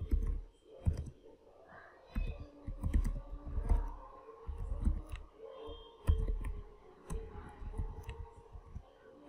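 Computer keyboard being typed on: irregular runs of key clicks, each with a low thump, as a line of text is entered.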